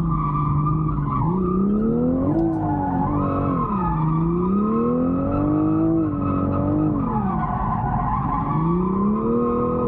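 A drift car's engine revving up and down in slow waves, about every three to four seconds, as the car slides sideways through continuous drifting, with its rear tyres skidding on the asphalt.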